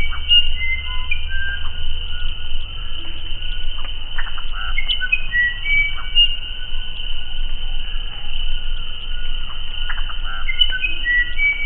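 Uirapuru (musician wren) singing: bouts of clear, pure whistled notes stepping up and down in pitch, mixed with short rattling notes, coming about every five seconds. A steady high insect drone runs underneath.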